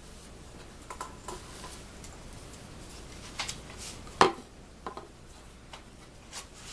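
Hand chisel paring wood from the heel of a mandolin neck: scattered light scrapes and clicks, with one sharper knock about four seconds in.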